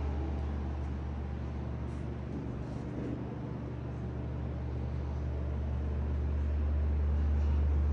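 Steady low hum with a faint hiss above it, growing somewhat louder over the second half.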